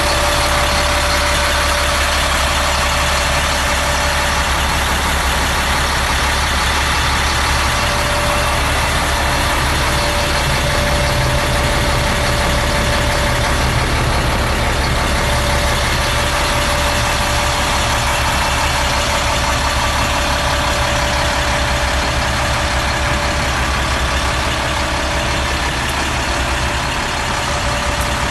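Truck diesel engine idling steadily, a low rumble with a constant whine over it.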